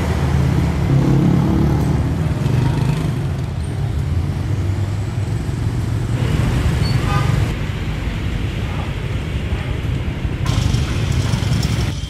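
Busy city street traffic: a city bus's engine running with a low hum as it pulls away in the first seconds, then a steady wash of passing cars and motorcycles.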